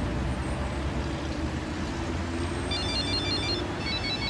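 A mobile phone rings inside a moving car: a rapid electronic trilling ringtone of short high beeps starts about two-thirds of the way in and comes in two bursts. Under it runs the steady low rumble of the car driving.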